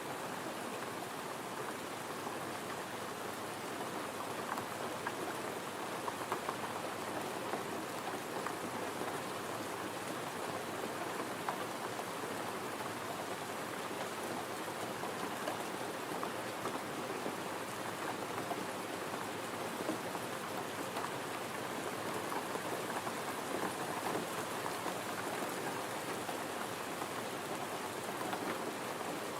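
Steady gentle rain falling, an even patter of drops with no change in strength.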